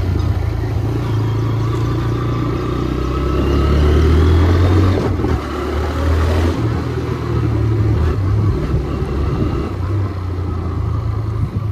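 TVS Raider 125's single-cylinder engine running on the move. The revs build and it grows louder about a third of the way in, then it drops back and runs steadily.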